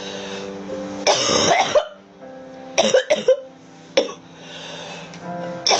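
A girl coughing: a long, harsh cough about a second in, then short coughs around the three- and four-second marks and another near the end.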